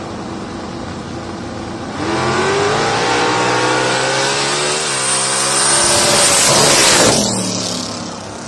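Turbocharged Fox-body Ford Mustang drag car launching about two seconds in, its engine note climbing through the gears with a shift about halfway through. It is loudest about seven seconds in, then falls sharply in pitch and fades as the car runs away down the strip.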